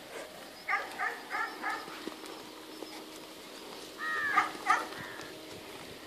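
A dog barking: a quick run of four barks about a second in, then another run of barks around four seconds in, over a faint steady hum.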